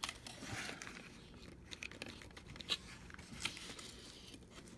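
Faint rustling and crinkling of packaging, with a few small sharp clicks, as the parts of a newly unboxed bike lock are handled.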